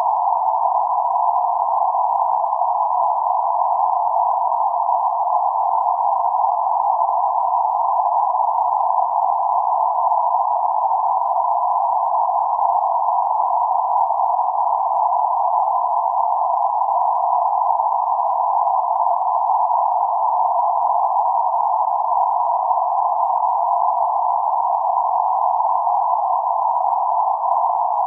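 Synthetic band-limited noise centred around 848 Hz: a steady, unchanging midrange hiss confined to roughly 500 Hz–1.5 kHz, with nothing above or below it.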